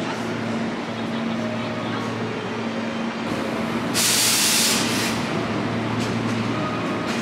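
Hankyu 8000 series electric train standing at the platform with a steady hum from its onboard equipment; about four seconds in, a short loud hiss of compressed air lasting under a second.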